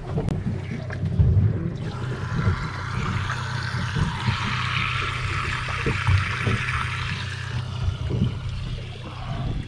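Water from a coiled deck hose gushing into a red grouper's mouth and through its gills to keep the fish alive, starting about two seconds in and easing off near the end. A steady low hum runs underneath, with a few low knocks.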